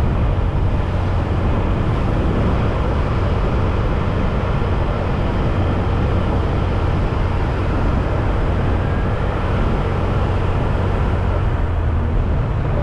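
Motorcycle riding noise heard through an action camera: a steady rush of wind and road noise over a low, even engine drone, with no change in pace.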